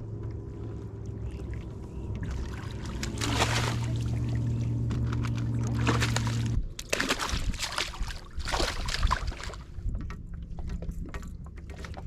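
Water splashing and sloshing at a kayak's side in several bursts, most strongly about three and a half seconds in and again after six seconds. A steady low motor-like hum runs underneath and cuts off suddenly about six and a half seconds in.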